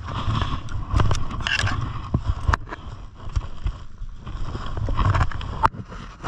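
Movement noise from a body-worn camera as its wearer walks: rustling gear and footsteps on dry dirt, over uneven wind rumble on the microphone, with a few sharp clicks.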